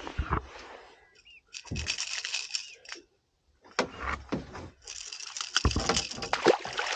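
Handling noise of a small sea bass being unhooked from a lure with pliers: two stretches of rattling and rustling with sharp clicks, separated by a short quiet gap.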